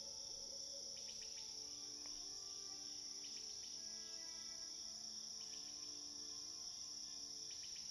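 Faint cricket chorus, a steady high-pitched trill, with soft slow melodic notes beneath it and small clusters of chirps every couple of seconds.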